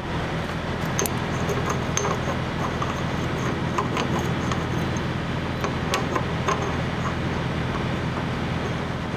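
Semi-truck diesel engine idling with a steady low hum, with a few sharp light clicks and knocks scattered through it from handling at the fuel pump.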